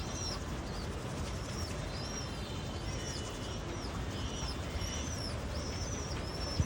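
A bird calling over and over, a short high arched note about once a second, over a steady low rumble.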